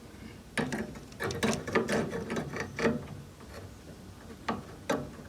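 Metal tool clicking and rattling against the high-voltage capacitor terminals and chassis inside an opened microwave, as the capacitor is discharged. It is a quick run of clicks for a few seconds, then a couple of single clicks. There is no spark snap, as the capacitor holds no charge.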